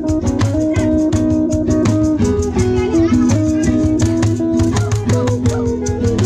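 Live band music: a guitar playing a melody of held notes over a fast, steady rattling percussion beat.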